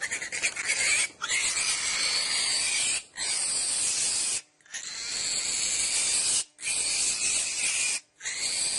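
Young wild piglet squealing in distress as it is pulled out of a pit trap by hand: a run of about six loud, high-pitched squeals, each one to two seconds long, with short breaks for breath between them.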